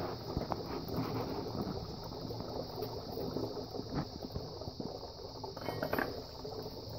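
Engine oil draining out of a John Deere 720 diesel tractor's crankcase into a bucket, a steady pouring trickle, with a few light knocks about four and six seconds in. The oil is being drained because it is contaminated with coolant.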